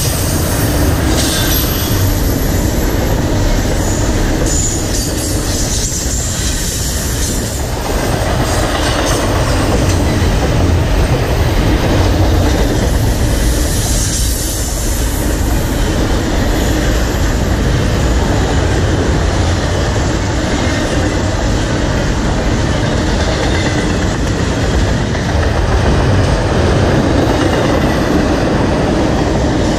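Intermodal freight train rolling past at speed, its double-stack container cars and empty well cars on steel wheels: a steady rumble and clatter over the rails, with brief high squeals now and then.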